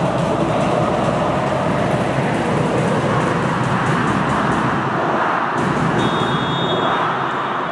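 Loud, steady crowd noise from spectators, with a short high tone about six seconds in.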